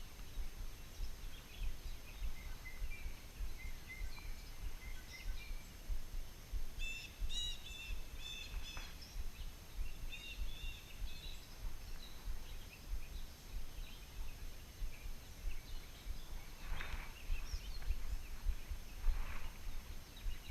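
Young birds chirping in short, scattered calls, with a quick run of chirps about seven to eleven seconds in, over a low steady rumble.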